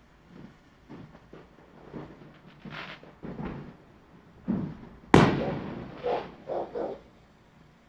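Consumer fireworks going off around a neighbourhood: scattered pops and bangs. About five seconds in comes one sharp, loud bang that trails off, then three quicker pops.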